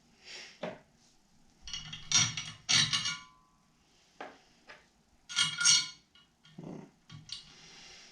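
Steel circular saw blade and metal sharpener parts being handled and set in place: a series of clinks and clatters, one about three seconds in leaving a brief ringing tone.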